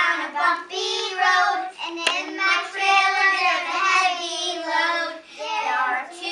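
A group of young children singing together, with one sharp click about two seconds in.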